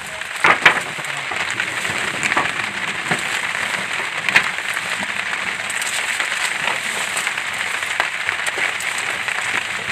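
Steady rain pattering on a boat's cloth canopy overhead: an even hiss with a few sharper drop ticks.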